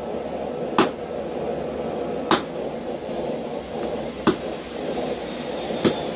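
Four separate hammer blows, about a second and a half apart, on a red-hot steel box-wrench end that is being forged around a bolt used as a sizing mandrel on a steel block. Each blow is a sharp metallic strike over a steady low background rumble.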